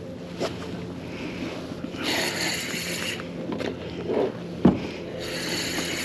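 Spinning reel being cranked against a fish on a bent rod, giving two whirring spells of about a second each. A single knock comes about three-quarters of the way through.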